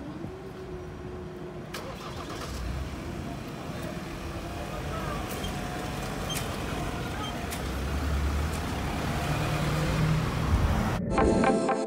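Road traffic moving off across a level crossing as the barriers rise: car and van engines pulling away and passing close, growing louder towards the end as the vans go by. Music starts in the last second.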